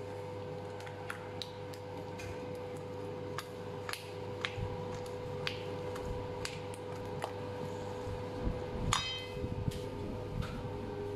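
Silicone spatula stirring and scraping a thick chocolate mixture in a stainless steel bowl, with scattered light clicks and knocks against the metal and one sharper ringing knock about two seconds before the end, over a steady hum.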